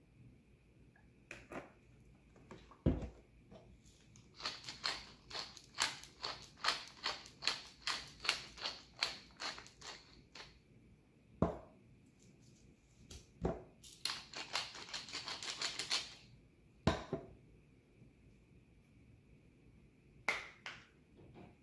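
Wooden pepper mill twisted by hand, grinding in a quick run of crackly clicks, then a second shorter burst. A few dull knocks fall in between.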